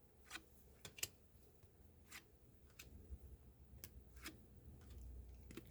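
Near silence with faint, scattered clicks and ticks, about a dozen, the loudest about a second in: trading cards being handled and flipped through by hand.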